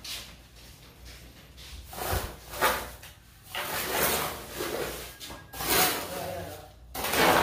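Mason's trowel scraping and spreading wet cement mortar for a floor-tile bed, in a series of rough scraping strokes, the loudest near the end.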